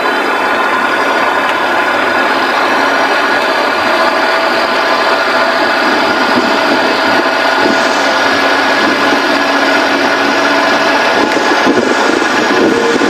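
Kei truck driving along a paved road, heard from low beside the front wheel: steady tyre and road noise mixed with the small engine running.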